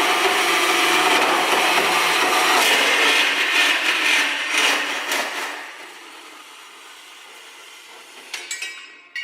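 Power cutting machine sawing through a metal pipe, a loud rough grinding that stops about five and a half seconds in and drops to a low running sound. A few light metallic clinks come near the end.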